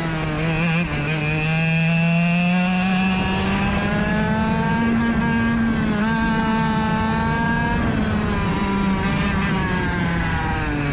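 Rotax DSB two-stroke kart engine at racing speed, its pitch dropping as the kart slows for corners and climbing again as it accelerates out, several times over.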